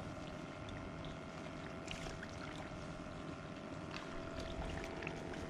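Lake water lapping and trickling at the shore, with a faint steady hum underneath and a few small ticks.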